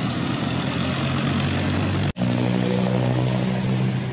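A motor engine running steadily and loudly, with a hiss of noise over a steady hum. It cuts out for an instant about two seconds in, then carries on with the hum clearer.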